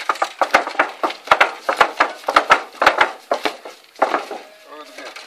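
Knife scraping the hair off a scalded pig's hide, a quick run of rasping strokes about two or three a second that eases off about four seconds in.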